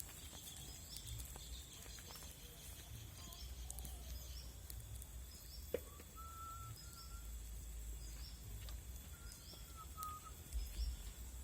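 Faint forest ambience of birds calling: short high chirps repeating every second or so, with a few short whistled notes in the middle and near the end, over a steady high drone and a low rumble. A single sharp click sounds about six seconds in.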